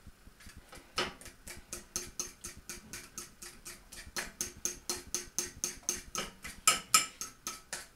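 Fork beating pancake batter in a ceramic bowl: fast, even clicking of metal against the bowl, about five strokes a second, faint at first and louder from about a second in.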